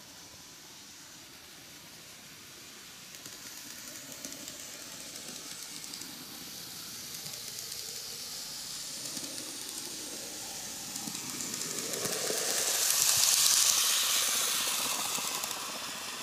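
KATO N-gauge D51 498 steam locomotive model running on its track: the electric motor's high-pitched whir and the rattle of the small wheels on the rails grow steadily louder as it approaches, peak as it passes close by about thirteen seconds in, and then fade.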